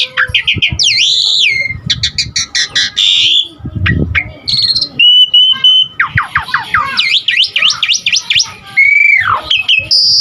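Javan pied starling (jalak suren) singing a busy, varied song: rapid chirps and sweeping whistles, a steady held whistle about halfway through, then a quick run of up-and-down sweeping notes and a long falling whistle near the end.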